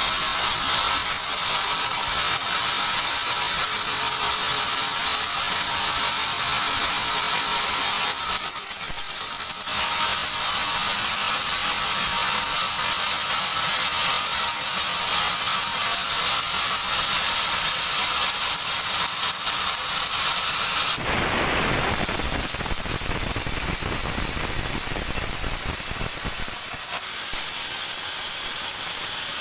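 Sawmill bandsaw running and sawing a teak beam: a dense mechanical rattle and hiss. About two-thirds of the way through, a fuller, deeper cutting sound starts.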